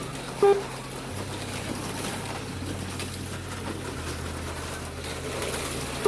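HO-scale slot cars running around the track: a steady low motor hum that steps up and down in pitch a few times, with one short electronic beep about half a second in.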